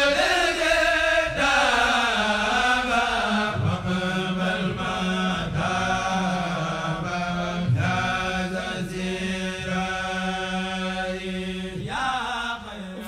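Background music of chant-like singing with long held notes over a steady low drone.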